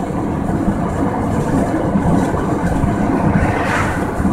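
Steady road noise inside a moving car's cabin: tyres rolling on asphalt with the low hum of the engine, and a brief swell of hiss near the end.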